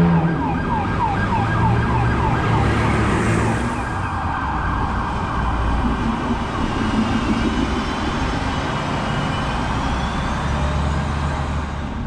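An emergency-vehicle siren sounds in quick yelping sweeps for the first couple of seconds, then in slower wavering wails. Under it runs the steady engine and road noise of a city bus passing close.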